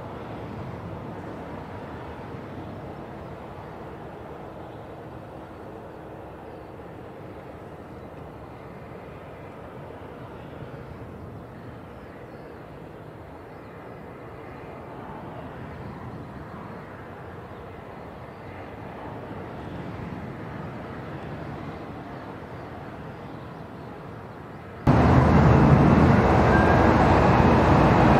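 Jet airliner engines heard at a distance, a steady low rumble. About 25 seconds in, it jumps suddenly to much louder jet engine noise with a faint whine on top.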